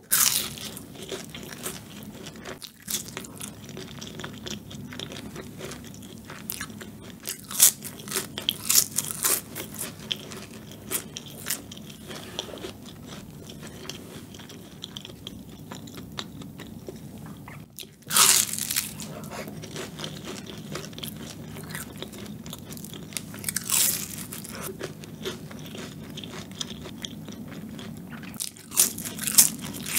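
Close-miked biting and chewing of flaky pastry tarts: the crust crunches and crackles with each bite, with chewing in between. The loudest bites come at the start, about 8, 18 and 24 seconds in, and near the end.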